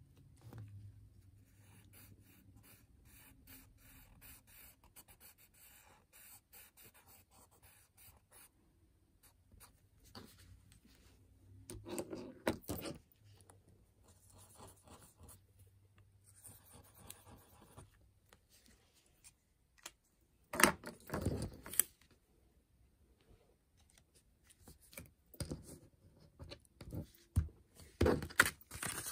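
Sharpie fine-point marker scratching across a paper sticker in quick colouring strokes. A few louder knocks and bumps come about halfway through, again around two-thirds of the way, and several more near the end.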